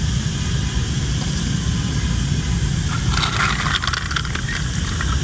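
Scraping and clicking of a die-cast toy fire truck handled and moved over stone tiles, starting about three seconds in, over a steady low rumble.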